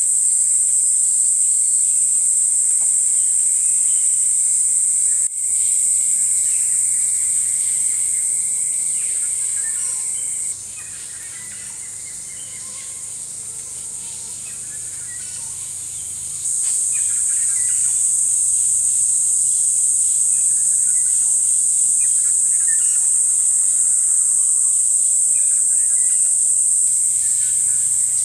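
A steady, high-pitched insect chorus of forest crickets or cicadas shrilling, the loudest sound throughout. It drops away for about six seconds in the middle, then comes back, with faint scattered bird calls over it.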